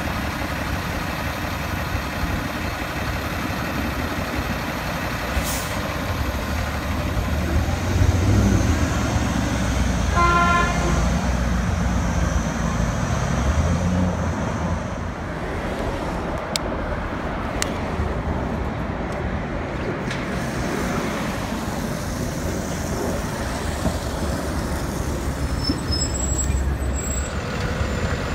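Diesel engines of New York City buses running and idling amid street traffic, a steady low rumble that swells for a few seconds about eight seconds in. A short horn toot sounds about ten seconds in.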